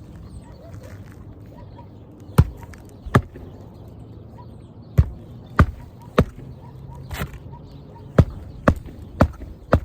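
Hammer driving nails into roof shingles: a string of about ten sharp knocks, irregularly spaced and coming faster near the end.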